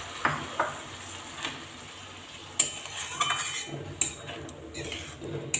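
Wet curry sizzling in a metal kadai just after a little water has gone in. About two and a half seconds in, a metal spatula starts stirring, scraping and clinking against the pan in quick strokes.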